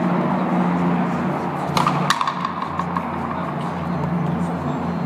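Two sharp knocks of a frontenis ball, about a third of a second apart, about two seconds in, over a steady low hum.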